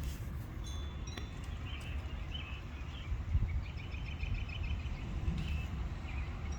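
Wind chimes ringing with a few light, high strikes about a second in, over birds chirping and a steady low wind rumble.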